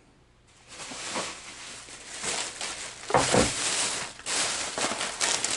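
Thin plastic shopping bag rustling and crinkling as it is handled and opened, with a louder bump a little after three seconds in.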